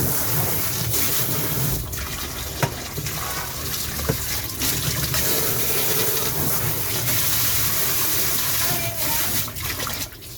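Water running and splashing steadily, with a couple of light knocks, dropping away just before the end.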